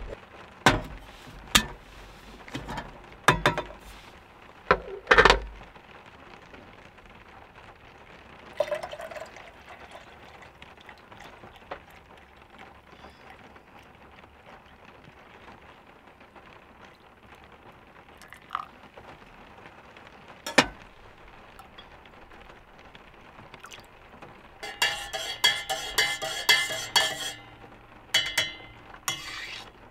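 Camp coffee being made: a few sharp knocks as an aluminium kettle and stove are handled, hot water poured from the kettle into an insulated steel mug, then a metal spoon clinking quickly against the inside of the mug as it is stirred near the end.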